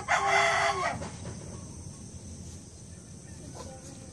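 A little girl shouting a scolding in Tagalog, "Tatagain ko kayo!", for about a second.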